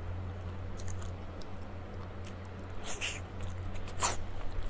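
Close-miked chewing and mouth smacks on a soft, sticky dessert: scattered wet clicks, the loudest about three and four seconds in, over a steady low hum.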